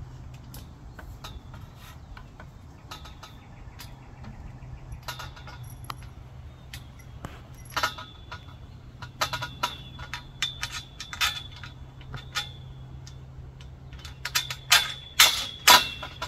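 Irregular metallic clinks and taps of steel greenhouse arch pipes, fittings and tools knocking together as a bolted pipe connection is worked into place. They grow more frequent from about halfway and are loudest near the end, over a steady low hum.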